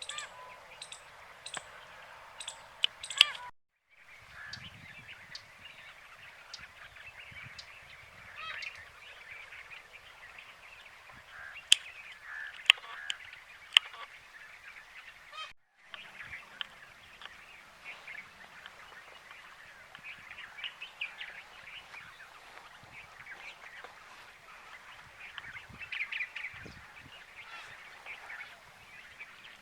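A flock of birds calling together in a dense, continuous chorus of honking calls, with a few sharp clicks around the middle. The sound cuts out briefly twice.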